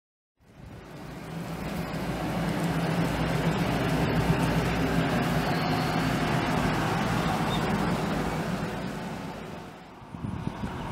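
Motor vehicle engine and tyre noise, a steady low hum that fades in over the first couple of seconds and dies away about nine seconds in.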